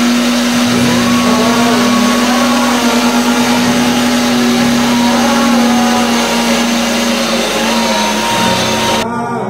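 Electric meat grinder's motor running steadily with a constant hum over a dense whirring noise; it stops abruptly near the end.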